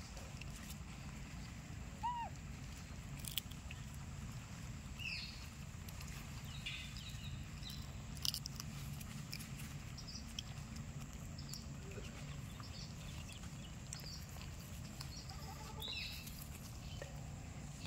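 A baby rhesus macaque nibbling and chewing food in its hands, with small sharp clicks, over a steady low hum. Short bird chirps sound every few seconds.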